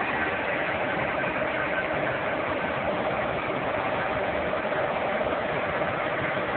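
Engine of a heavy construction rig running steadily, with a constant whine through it.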